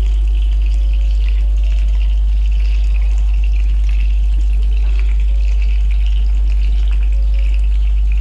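Egg-battered pike-perch fillet frying in oil and butter in a pan: a steady sizzle with fine crackling, over a constant low hum.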